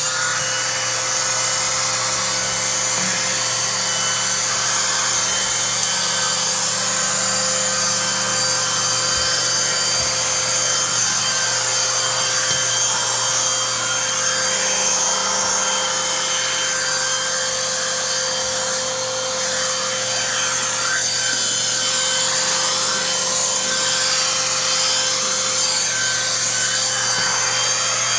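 Bissell 1831 CleanView bagless upright vacuum running steadily, its motor giving a constant whine, with the turbo brush attachment scrubbing and rubbing over a surface.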